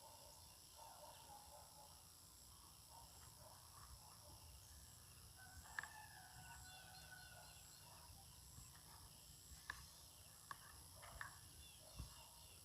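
Near silence: faint outdoor field ambience with distant bird calls and a few soft clicks.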